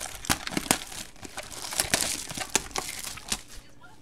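A cardboard trading-card mini box being opened by hand: crinkling and tearing with many sharp clicks, busiest about halfway through.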